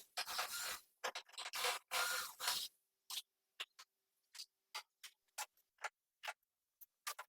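Scraping and rustling for the first few seconds, then a series of sharp, separate clicks, about two a second, with silence between them.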